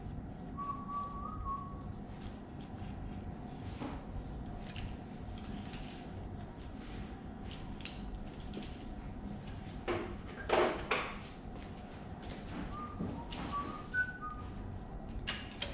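Hand tools clinking and knocking against parts of a Ford 302 V8 during teardown, with a louder clatter about ten seconds in and a few brief faint high notes, over a steady background hum.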